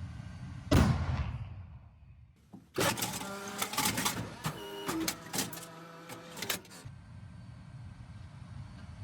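A tank's main gun fires once about a second in, a sharp blast with a decaying rumble. A few seconds later comes a run of mechanical whirring and clanking lasting about four seconds, over a low engine rumble.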